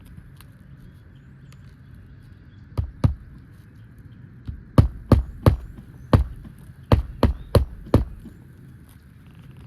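Hammer blows driving a pry tool in under an asphalt roof shingle: two strikes about three seconds in, then a run of about eight strikes over the next three seconds.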